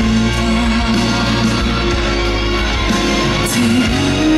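A woman singing a slow ballad live into a microphone with held, gently shifting notes, over band accompaniment with guitar, heard through the venue's sound system as recorded from the audience with no pitch correction.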